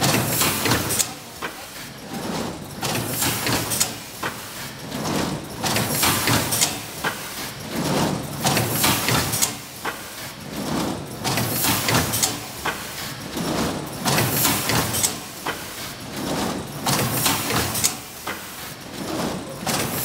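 Microwave popcorn bag packing machine running, its pneumatic cylinders hissing and clacking in a repeating cycle, roughly a pair of bursts every two to three seconds over continuous mechanical running.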